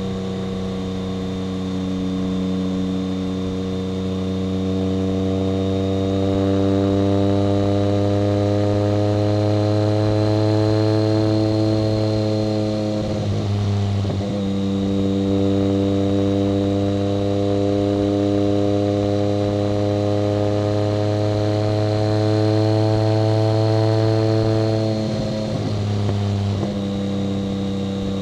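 1990 BMW K75's three-cylinder engine running under way, its note climbing gently and getting louder, with two brief breaks in the engine note between steady stretches. A thin high whine runs underneath.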